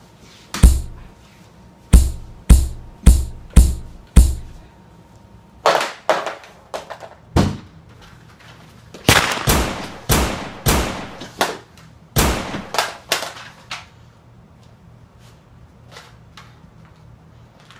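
A rapid series of loud, sharp bangs like gunshot sound effects, each with a short echoing tail, over a faint music bed. They come in bunches through the first two-thirds and turn fewer and fainter near the end.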